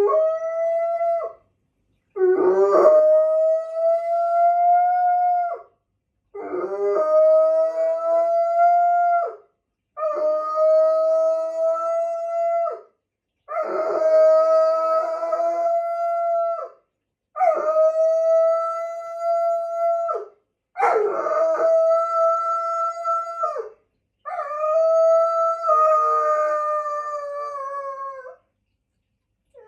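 Golden retriever howling in response to a distant siren: eight long, steady howls in a row, each held for three to four seconds with a short breath between, the last one slowly sagging in pitch.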